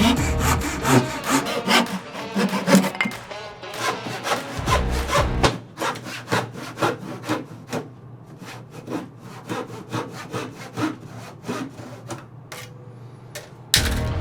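Hand saw cutting through scrap wood in a long run of back-and-forth strokes, louder at first and quieter after about six seconds.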